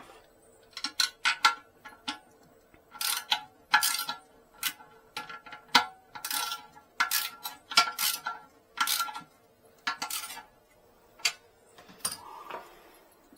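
Hand tools clinking and scraping against toilet tank hardware in a series of short, irregular strokes, about a dozen in all, with a slight metallic ring, as a part of the toilet is worked on and tightened.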